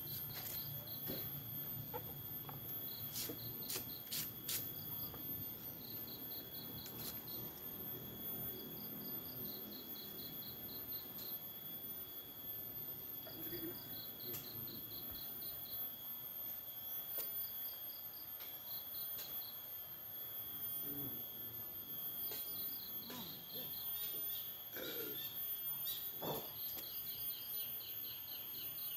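Insects chirping: a steady high buzz under short runs of rapid, evenly spaced chirps that repeat throughout. A few sharp clicks come a few seconds in.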